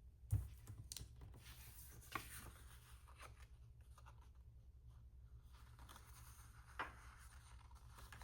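Faint paper handling: a sticker being placed and pressed onto a planner page, with a few soft taps and rustles over a steady low hum.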